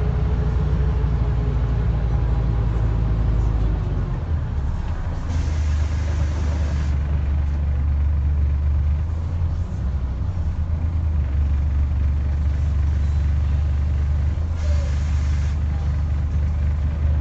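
Scania N94UD double-decker bus's diesel engine droning under way, heard from inside the bus, with its note changing about four seconds in. Two short hisses of compressed air from the bus's air system come a few seconds in and again near the end.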